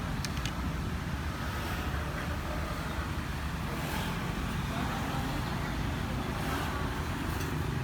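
Street traffic: a steady rumble of passing vehicles, with a couple of sharp clicks near the start.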